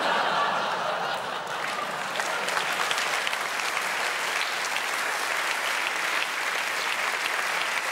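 Audience applauding, many hands clapping in a dense, even patter, a little louder in the first second or so.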